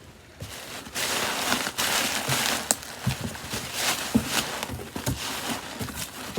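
Packing material rustling and crinkling as it is handled and pulled away, with scattered clicks and soft knocks.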